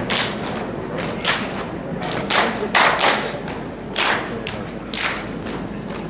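Saman dance: a row of kneeling dancers clapping and slapping their bodies in unison, giving about ten sharp slaps at uneven intervals, several of them in quick pairs.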